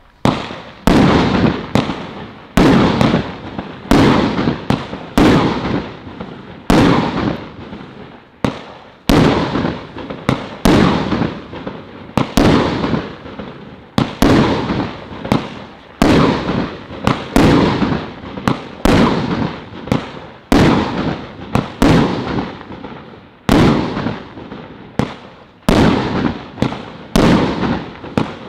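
Celtic Fireworks 'Purple Plums' firework cake firing shot after shot in steady succession: about thirty-five sharp bangs, a little under a second apart, each trailing off before the next.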